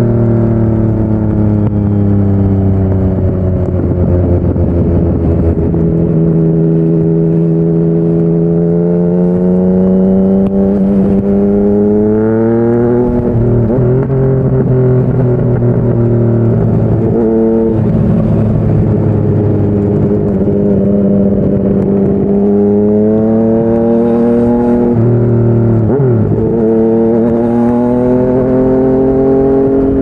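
Yamaha MT-09's inline-three engine through a Yoshimura R55 slip-on exhaust under way. Its pitch sinks at first, then climbs repeatedly under throttle, with brief sharp breaks at gear changes about halfway through and again near the end.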